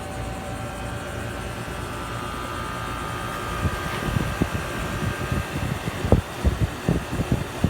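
Outdoor heat pump units running, a steady compressor and fan hum with a faint whine. From about halfway in, irregular low thumps break over the hum.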